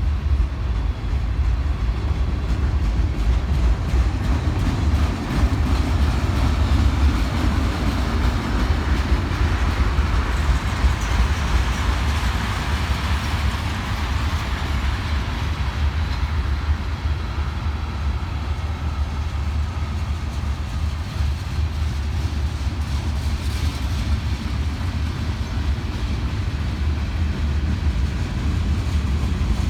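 Mixed freight train rolling past: a steady low rumble of wheels on rail, with the higher-pitched rolling noise swelling around the middle.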